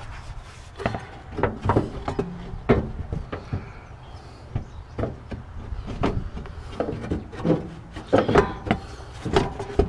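Fan shroud being worked down over a new radiator by hand: a string of irregular knocks, clicks and scrapes as it is pushed and rocked toward its clips.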